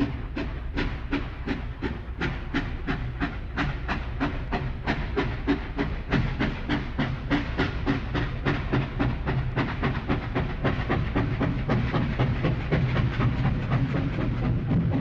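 Steam locomotive working steadily, about four even exhaust chuffs a second over a low rumble and hiss.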